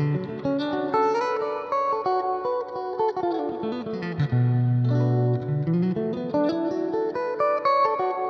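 Electric guitar played clean through a Roland Blues Cube Hot amplifier, with the amp's reverb turned up high for a big ambience. It plays single-note melodic runs sweeping down and back up, with a low note held for about a second around the middle.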